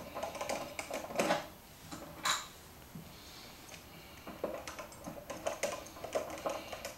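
Light clicking and scraping of a screwdriver working out the screws of a brass shower valve faceplate. Two louder metal clinks come about one and two seconds in, the second ringing briefly.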